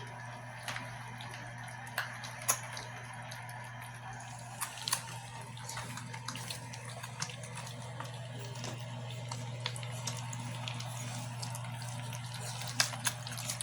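Three-week-old puppies lapping and smacking at wet puppy mush: many quick irregular wet clicks and slurps over a steady low hum.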